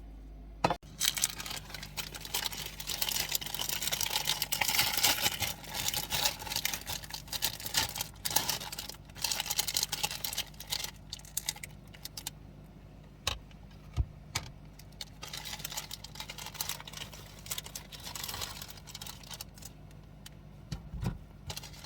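Rustling and light clattering of small objects being handled, with scattered sharp clicks and knocks, dense for the first half and sparser after.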